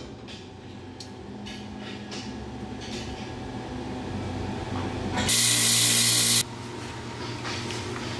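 A power tool runs in one short burst of about a second, a loud hiss over a low hum that starts and cuts off abruptly, about five seconds in; light handling clatter before it.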